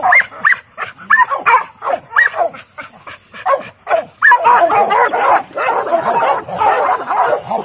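Pit bull-type dogs barking and yelping over and over in short calls, getting denser and louder about four seconds in.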